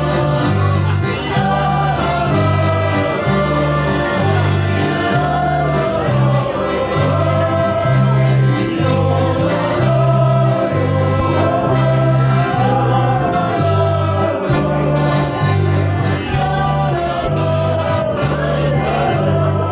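A group of people singing a song together in unison, accompanied by a digital piano and acoustic guitars, with a steady bass line under the voices.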